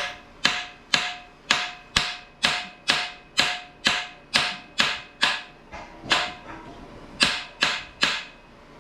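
Hammer striking the rusted bolt heads on a cast-iron exhaust manifold, about two sharp, ringing metal blows a second, with a short pause past the middle. The blows are meant to crack the rust so the seized bolts break loose.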